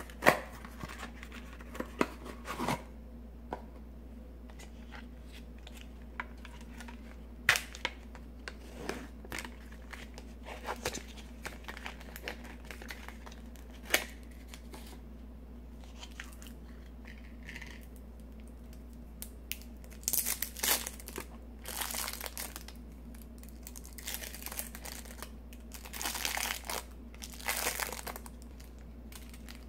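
Clear plastic wrap crinkling and tearing as a wheel of brie cheese is unwrapped from its round box, with scattered light clicks and taps. The longest crinkling comes in the last ten seconds.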